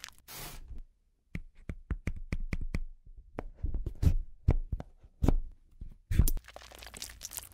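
A metal needle punching holes through a thin clear plastic cosmetic lid: a run of sharp clicks and taps, a few of them louder, with a scratchy rustle near the end.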